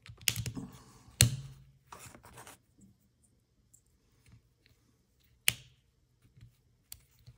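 Push-button switches on a Tektronix 7904 oscilloscope being pressed and worked by hand: a few sharp plastic clicks and knocks, the loudest about a second in and another past the middle, with light scraping between them, as the sticky buttons are tested after repair.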